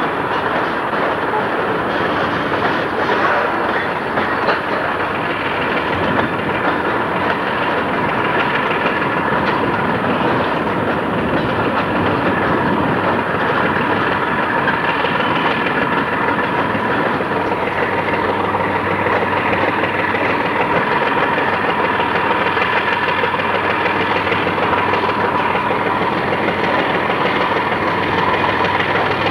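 Freight train rolling along the rails with continuous wheel clatter. A steady high tone joins from about halfway, and the low drone of the approaching diesel locomotives grows in over the second half.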